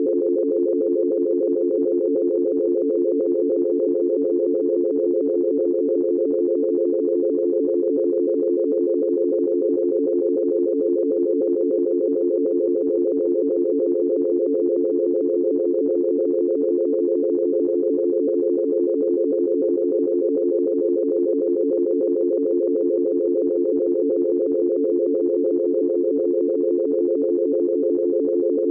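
Futuristic synthesized dial tone: a steady, unbroken chord of a few close low tones held without change.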